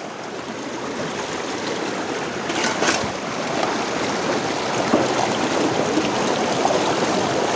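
Shallow stream water rushing over rock at the foot of a waterfall, with one short sharper splash about three seconds in.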